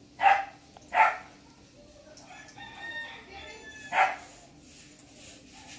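Domestic animal calls heard from outside: three short loud calls, two a little under a second apart and a third about three seconds later, with a fainter, drawn-out pitched call between them.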